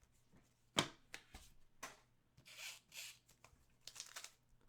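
Trading cards and their packaging being handled: a sharp snap a little under a second in, then a few light ticks and short rustling, sliding sounds.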